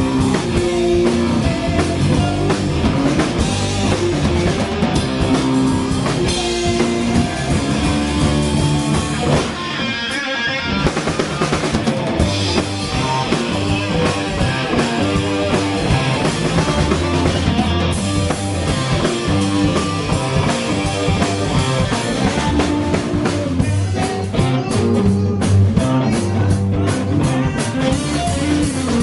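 Live blues-rock band playing: electric guitar, bass guitar and drum kit together, with a short break in the low end about ten seconds in.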